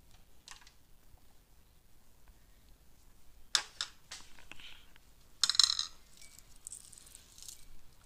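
Quiet handling noise from wiring work: a few short clicks and rustles, the loudest a brief clatter about five and a half seconds in.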